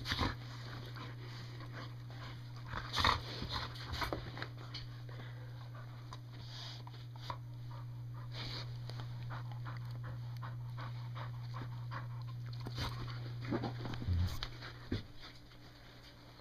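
Two golden retrievers panting and scuffling as they mouth and paw at a pair of fabric cargo shorts on carpet, with louder rustles and knocks about 3 seconds in and again near 14 seconds.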